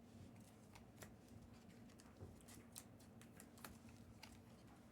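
Faint, irregular clicks and ticks of trading cards being flipped through and handled, over a low steady room hum.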